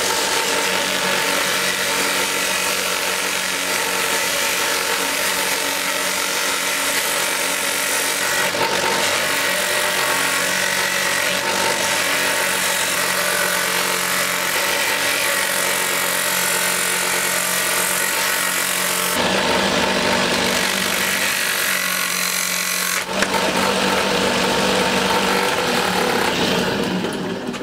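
Old bench drill press running a homemade sanding drum, with wood pressed against it and sanded to a bevel: a steady motor hum under the rasp of abrasive cloth on wood.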